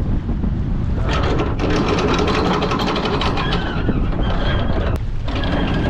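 Sailboat's anchor windlass running and paying out chain, the chain rattling over it, with a short stop about five seconds in. Wind buffets the microphone throughout.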